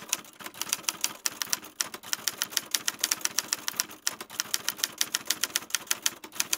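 Typing sound effect: a rapid, uneven run of sharp typewriter-like key clicks, several a second, sounding as on-screen text is typed out.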